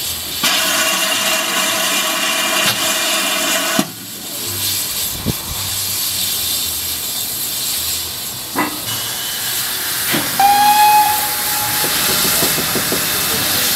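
GWR 4200-class 2-8-0 tank engine No. 4270's steam whistle sounding one steady blast of about three seconds, followed by the hiss of escaping steam. About ten seconds in comes a second, shorter and higher whistle, with a few sharp knocks around it.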